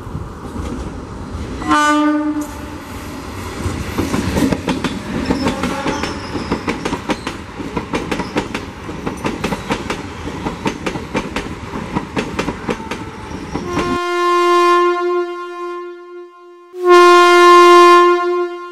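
A train horn sounds briefly, then the coaches of a MEMU electric multiple unit pass close with a steady clickety-clack of wheels over rail joints and rumble. The track sound cuts off suddenly and two long horn-like blasts follow.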